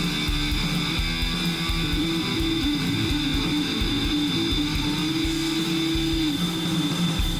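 Background rock music with electric guitar, over a steady high whine.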